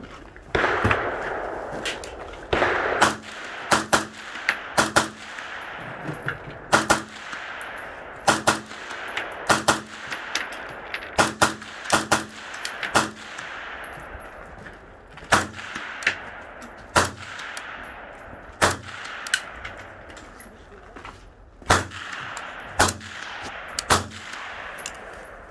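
Suppressed Steyr AUG A3 M1 rifle in 5.56 with an OSS Gen 5 BPR26 suppressor, firing shot by shot at irregular intervals. Many shots come in quick pairs, and each leaves a fading echo.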